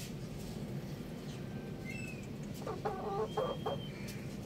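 Rooster clucking: a short run of quick, broken calls a little past halfway, lasting about a second.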